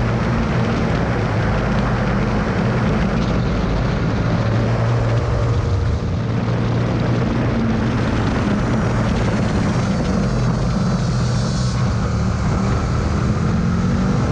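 Motorcycle engine running hard at track speed under heavy wind rush over the camera. It slows near the end as the bike brakes for a corner.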